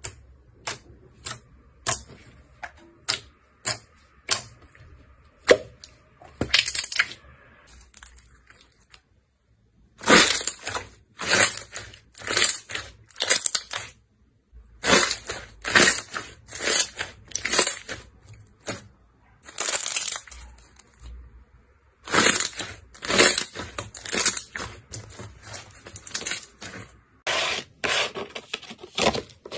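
Slime being handled by hand, making a run of short, sharp clicks and pops in clusters, with brief pauses between handfuls.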